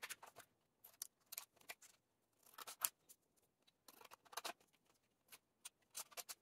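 Scissors cutting through a folded sheet of paper: faint, short snips in several separate bursts.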